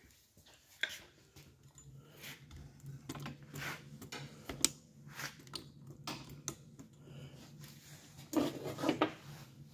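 Scattered light metallic clinks and knocks, with a louder cluster near the end. A steady low hum runs underneath, starting about a second and a half in.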